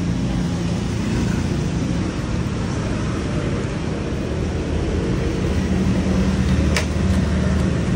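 Street traffic: a motor vehicle engine running close by with a steady low hum, getting louder in the second half, and a single sharp click about seven seconds in.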